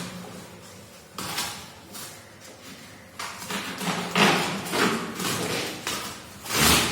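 Outer packaging wrapper being pulled and torn off a boxed keyboard: irregular rustling and scraping bursts, busiest in the middle and loudest near the end.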